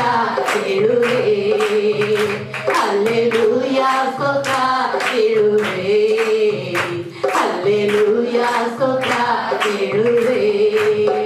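A man singing a Christian worship song into a microphone, holding long wavering notes, with hands clapping a steady beat along with it.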